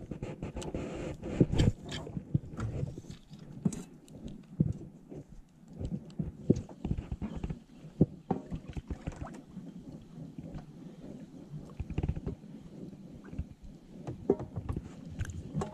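Water sloshing and lapping against a small boat, with irregular knocks and low thumps all through.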